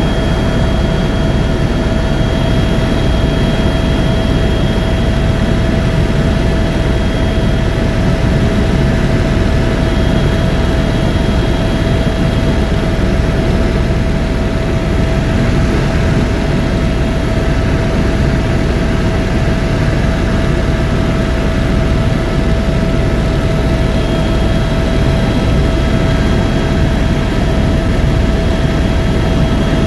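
Tour helicopter in flight, heard from inside the cabin: a loud, steady engine and rotor drone with a constant whine over it.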